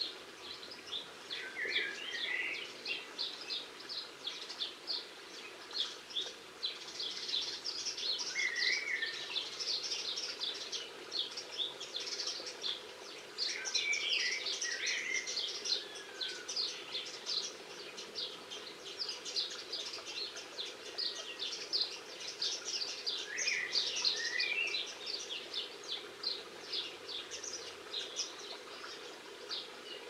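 Garden birds calling and singing: a dense run of quick high chirps throughout, with a lower warbled phrase breaking in every few seconds.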